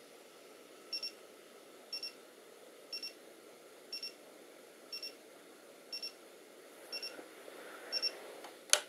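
Digital alarm clock going off: pairs of short high beeps, one pair a second, eight times. A sharp knock near the end.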